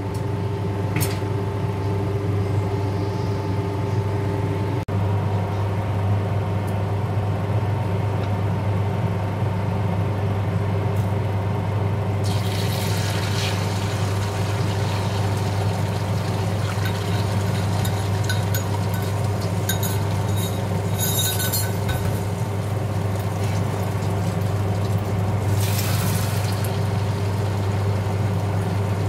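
Steady low appliance hum of a kitchen cooktop setup. About halfway through, beaten eggs poured into hot oil in a wok sizzle, with two shorter sizzles later as they are worked.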